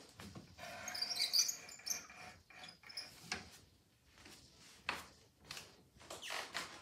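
Baby Wolf loom's back beam being cranked to wind on the warp. A faint squeak about half a second in is followed by irregular clicks from the ratchet and pawl and the wooden frame.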